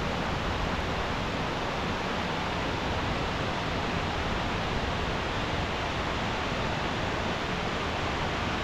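Steady rushing of water pouring down Buttermilk Falls, an even, unbroken wash of sound.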